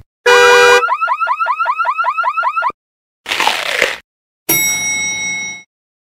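A run of short stock sound effects: a brief electronic tone chord that turns into a rapid warbling, alarm-like beep, about five or six warbles a second for about two seconds. Then comes a short noisy burst, and after it a noisy hit with ringing tones that fades.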